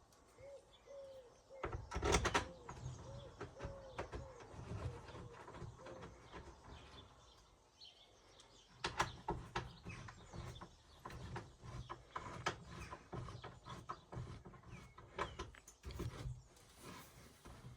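Irregular knocks, clicks and rustles of hands working on camper van interior trim and fittings. A bird calls repeatedly in the first few seconds.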